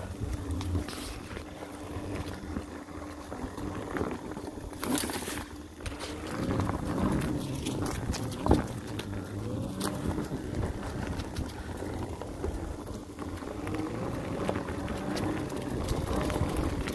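Mountain bike riding along a dirt single-track trail: tyres rolling over dirt and roots with wind rumble on the phone microphone, broken by frequent knocks and rattles from bumps, the loudest a sharp knock about halfway through.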